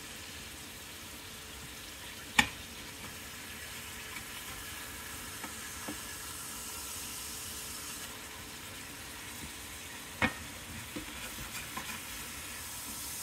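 Hamburger steak patties sizzling steadily in oil in a skillet while they are turned with a metal spatula. Two sharp knocks of the spatula against the pan come about two seconds in and about ten seconds in, with a few lighter taps near the end.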